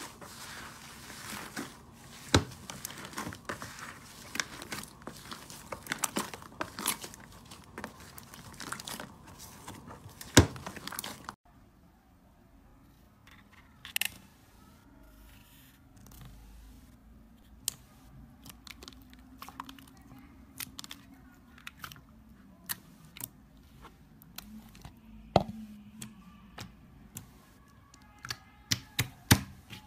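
Hands kneading and squishing thick slime, making dense crackling and crinkling with sharp clicks. About eleven seconds in it cuts abruptly to a much quieter stretch of scattered sticky pops and squelches as fingers press into soft white slime.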